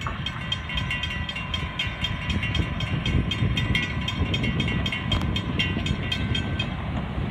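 Railroad grade-crossing bell ringing rapidly, about four strikes a second, as the gates lift after the train has cleared; it stops near the end. Underneath runs the low rumble of the departing freight train.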